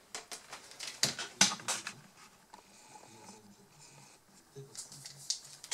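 Screwdriver work on the Dell Inspiron 15 3558's motherboard screws: a run of sharp clicks and taps of the tool and screws against the board and plastic chassis. A faint steady whine runs for about a second and a half in the middle.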